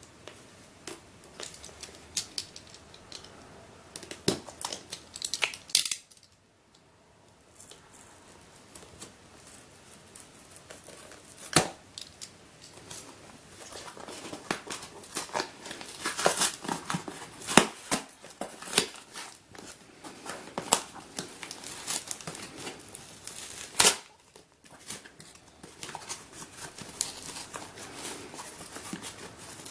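A taped-up mail package being opened by hand: packaging crinkling and tape tearing, with irregular sharp clicks and rustles and two short pauses.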